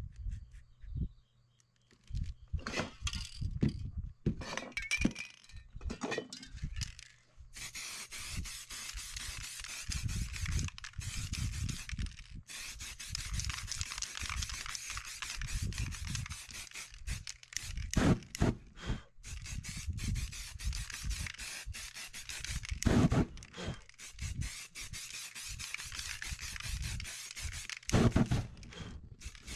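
Aerosol spray-paint cans hissing in long sprays with short breaks, over knocks and rubbing of paper and cans being handled on the board. Before the spraying starts, paper rubs and scrapes as the stencil comes off. Near the end a loud burst comes as flames flare across the painted board.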